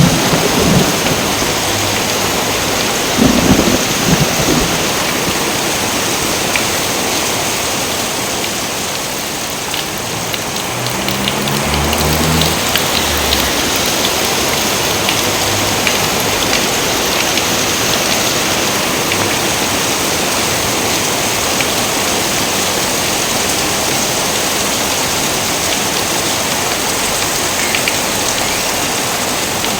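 Steady rain falling, with low rolls of thunder: the loudest a few seconds in, another about twelve seconds in.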